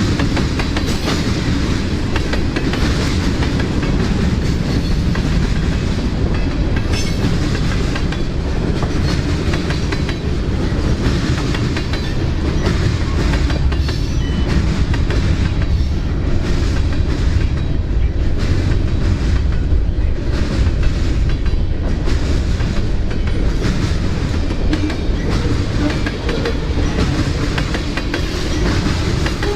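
A CSX freight train's cars rolling past, steel wheels clicking over the rail joints in a loud, steady rolling noise.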